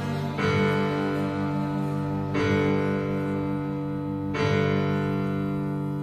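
Slow instrumental music with piano: sustained chords, a new one struck about every two seconds.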